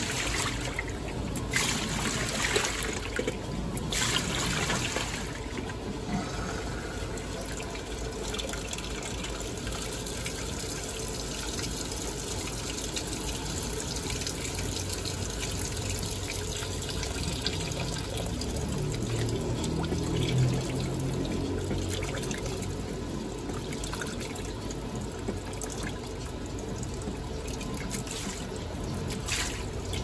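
Panasonic NA-FD10X1HRM top-load washer in its final rinse. The pulsator churns the clothes through the water, which sloshes and swishes, with a steady trickle and splash of water pouring into the tub. Swishing surges come in the first few seconds, and the motor hums low for a moment near the middle.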